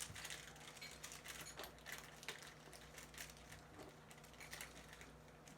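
Rubik's cube being turned quickly by hand: a fast, irregular run of faint plastic clicks and clacks.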